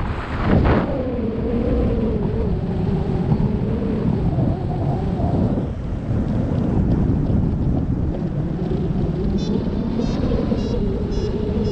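Wind buffeting the microphone in a steady, heavy rumble during a paragliding flight. A run of short high beeps, about two a second, comes in near the end.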